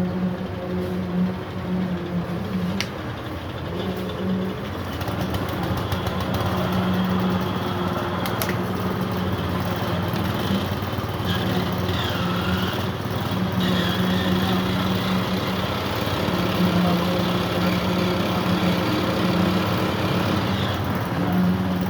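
An engine running steadily, its low hum continuing with slight breaks, over general outdoor machine noise, with a few faint sharp clicks in the first several seconds.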